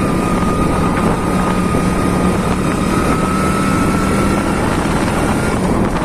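A motor vehicle running steadily, with a constant low hum and a higher whine that rises slowly in pitch, over a dense rush of noise.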